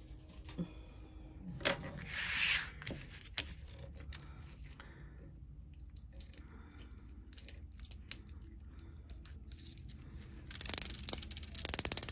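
Paper border of a diamond painting canvas being trimmed, likely with scissors: scattered snips and rustles, a short rasp of cutting about two seconds in, and a denser run of rapid cutting and crinkling near the end.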